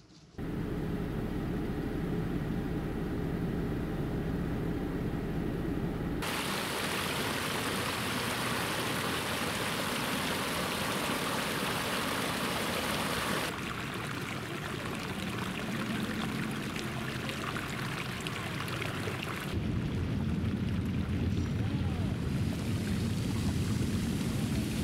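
Water rushing and splashing from Soda Springs Geyser's jet and its runoff cascading over mineral terraces. It comes as several clips that change abruptly about 6, 13 and 20 seconds in: the first and last are a deep rush, and the middle ones a brighter hiss.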